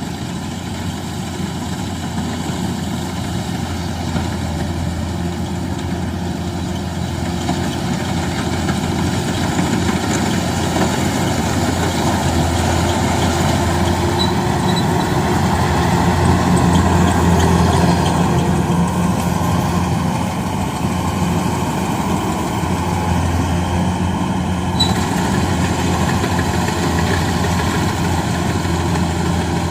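Rice combine harvester's engine running steadily under a low hum, growing louder toward the middle and easing off a little after.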